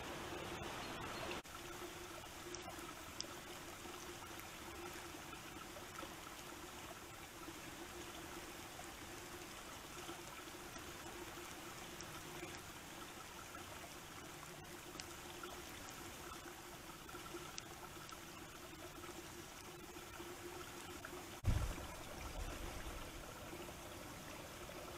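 Faint steady hiss of wind and rain over a pond, heard through a trail camera's small microphone, with a faint steady hum underneath. A single low thump about 21 seconds in.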